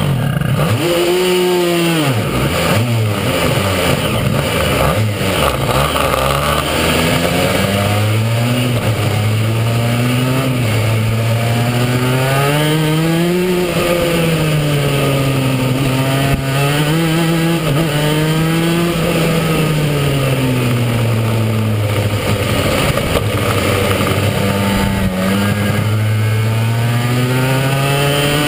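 Go-kart engine running hard on the track, its pitch climbing under throttle and dropping off again, over and over, with a sharp dip and pick-up about a second in.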